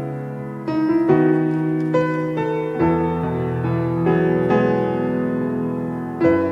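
Piano playing a slow, gentle introduction of sustained chords, with new chords struck about once a second.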